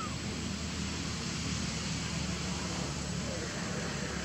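Steady outdoor background noise: a low hum under an even hiss, with one short falling chirp right at the start.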